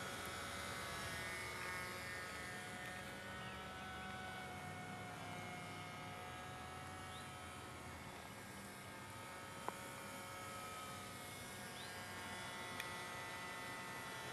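Small brushless electric motor and propeller of a micro RC plane (a HobbyZone Champ running on a one-cell LiPo) buzzing steadily in flight at about half throttle, its pitch drifting slightly. A short click comes about ten seconds in and a fainter one a few seconds later.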